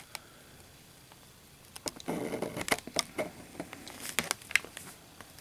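Plastic packaging of a Zippo lighter kit being handled. Soft rustling and scattered sharp clicks start about two seconds in and die away near the end.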